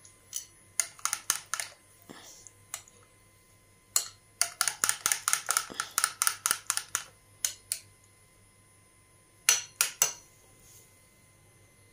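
Metal spoon clicking against a glass bowl while stirring a thick yogurt sauce. Scattered clicks come first, then a quick run of them from about four to nearly eight seconds in, and two or three more near ten seconds.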